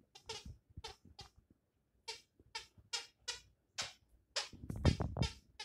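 Plush squeaky snake toy squeaking again and again as a puppy chews and bites it, about a dozen short, high squeaks at roughly two a second, with dull thumps from the toy and paws among the louder squeaks near the end.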